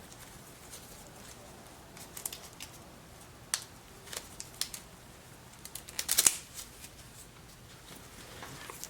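Handling noise from a small electronic recorder and its power cable being plugged in: scattered light clicks and rustles, with the loudest clatter about six seconds in.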